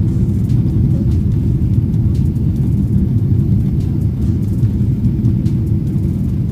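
Steady low rumble of engine and airflow noise inside the cabin of a Boeing 777-300ER in flight, on approach to land.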